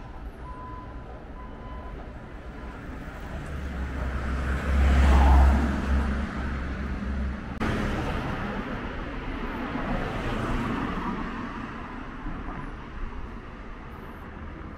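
Road traffic on a town street: vehicles driving past. The loudest goes by about five seconds in with a strong low sound, and another passes around ten seconds in.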